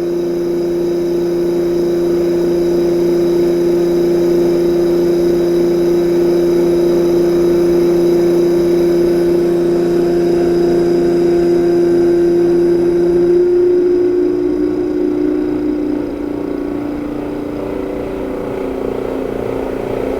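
Mechanical vacuum pump running with a steady hum, pumping down the pressure over a dewar of water. About two-thirds of the way through its note shifts and the lower tone drops out, and it then runs a little quieter.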